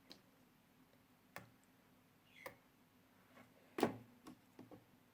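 A few faint, scattered clicks and taps, the loudest about four seconds in, followed by a couple of smaller ones.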